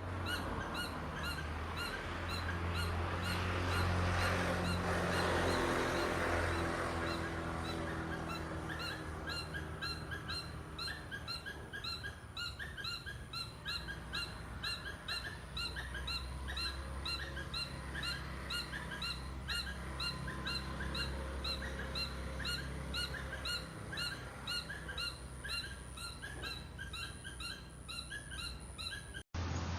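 Birds chirping in a rapid, continuous run of short, high, repeated notes. A broad rushing noise swells and fades a few seconds in, under a steady low hum.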